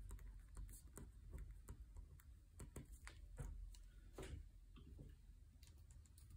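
Faint, irregular ticks and taps, a few a second, from a felt-tip marker writing on paper on a desk, over near silence.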